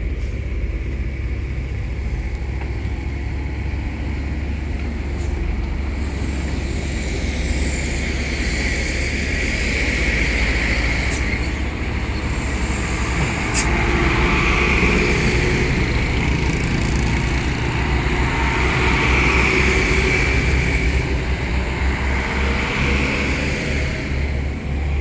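Heavy diesel machinery running with a steady low rumble while a dump truck is loaded with sand. A higher whine swells and fades every few seconds.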